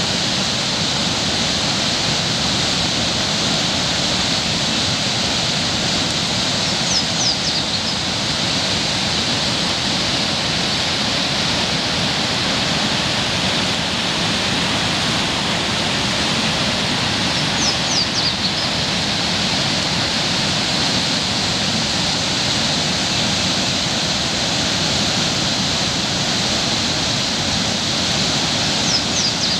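Steady, loud rush of whitewater as the flooded Harpeth River pours out of the Pattison Forge tunnel, a flume cut through the rock, and churns over rapids. Short, faint high chirps come three times, about ten seconds apart.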